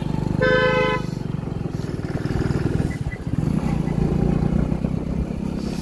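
Motorcycle engine running steadily under way, with a short horn beep about half a second in.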